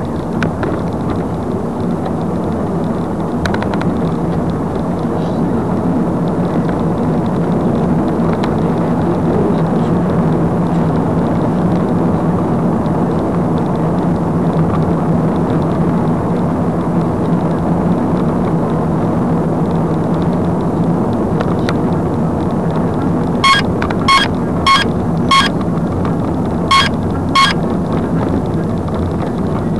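Car driving, heard from inside the cabin: steady engine and road noise. Near the end come six short electronic beeps, four in a quick row and then two more.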